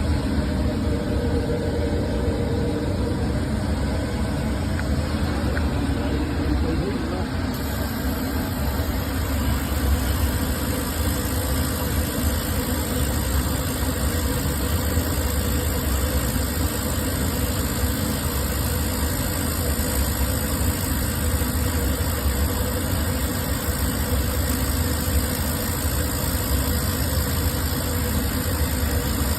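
Industrial machinery running steadily: a deep, even hum with a steady hiss over it.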